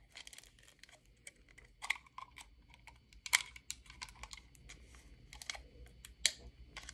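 Fingernails picking and clicking at a plastic water bottle: faint, irregular small clicks and light plastic crinkles, with a couple of louder clicks about three seconds in and near the end.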